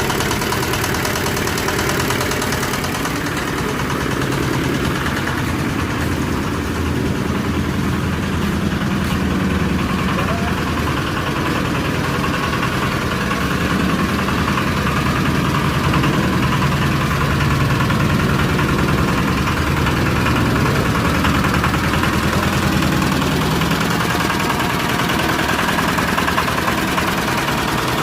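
Rotary compost sifting machine running steadily under its drive engine, a continuous mechanical drone that grows a little louder about halfway through.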